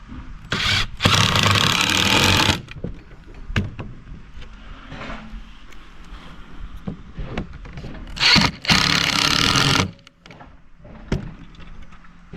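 Cordless impact driver driving screws with an impact-rated T25 Torx bit: two runs of about two seconds each, each with a short start, with quieter handling clicks in between.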